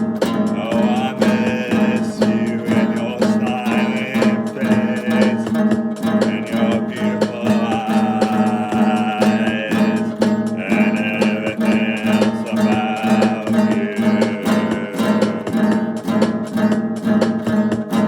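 Music led by quickly strummed acoustic guitar, with a steady driving rhythm and a wavering melody line over it.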